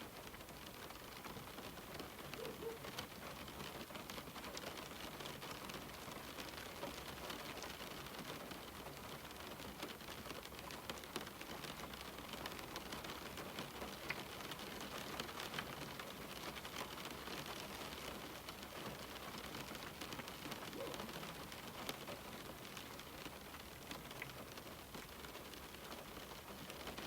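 Steady rain falling on a window, an even hiss dotted with small ticks of individual drops.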